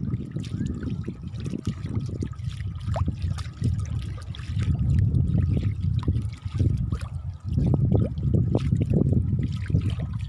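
Shallow water splashing and trickling as a dog's paws wade through it on a wet tidal flat, with many short splashes over a heavy low rumble. The splashing grows louder and busier about three quarters of the way in.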